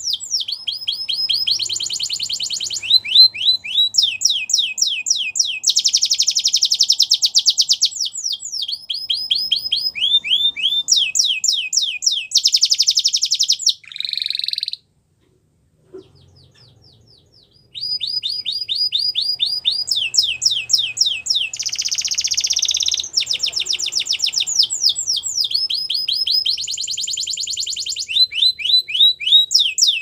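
Canary singing: fast trills and rolls, each a run of the same quick high note repeated many times before switching to another. The song breaks off for about three seconds midway, then carries on.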